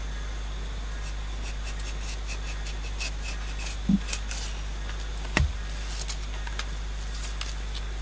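Long green leaves being split and torn into strips by hand, giving runs of short crackling rips, with two dull knocks near the middle, over a steady low hum.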